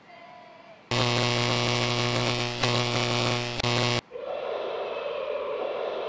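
A loud, steady electronic buzzing tone starts about a second in and cuts off suddenly three seconds later. It is followed by a steady hiss and hum.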